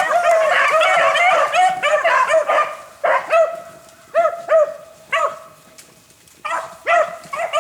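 A pack of beagles baying as they run a rabbit on its scent trail. Many overlapping bays at first, thinning to single bays with a short lull past the middle, then picking up again near the end.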